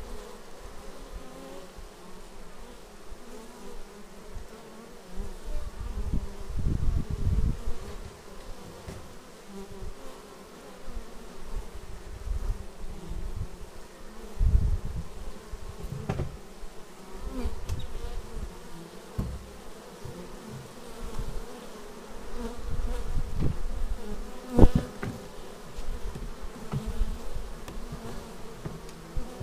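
Honeybees buzzing at the hive entrance: a steady hum with louder low swells now and then as bees fly close past. A single sharp tap sounds late on.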